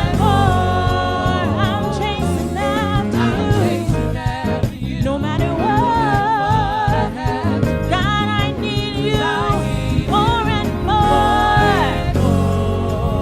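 Gospel worship singing with accompaniment: voices holding long, wavering notes over a steady instrumental backing.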